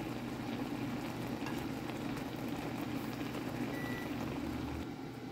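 Ramen broth boiling in a shallow pan, a steady dense bubbling and popping.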